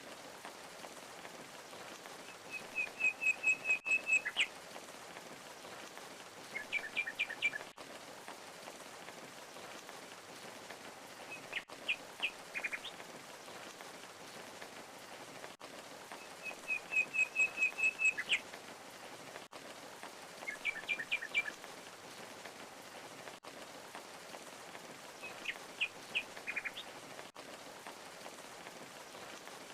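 Steady rush of a waterfall, with a songbird singing short phrases every four to five seconds: sometimes a quick run of chirps, sometimes a few sharp notes. The same phrases come back in the same order about every fourteen seconds.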